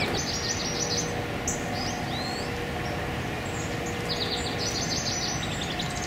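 Small songbirds calling: a rapid, high trill of short repeated notes near the start, a single downward-curving chirp a couple of seconds in, and another rapid high trill from about four seconds in.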